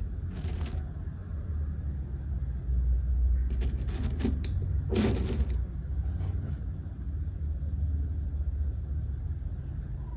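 A chocolate-coated candy bar snapped apart with a short crackle, then a few brief crunching, rustling sounds as the pieces are set among the candies in a bowl, over a steady low rumble.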